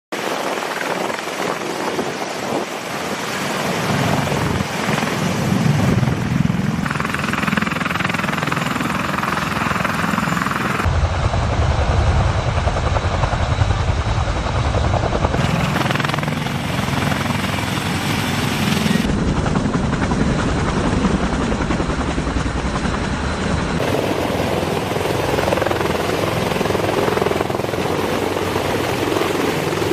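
CH-53E Super Stallion heavy-lift helicopter, its three turboshaft engines and main rotor running loud and close, with a low rotor beat under a steady whine and rush of air. The sound changes abruptly about four times where separate shots are cut together.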